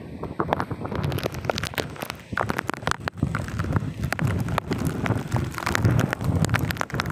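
Gusty typhoon wind buffeting the phone's microphone: a low rumble in uneven pulses, with rapid crackling throughout, getting louder about a second in.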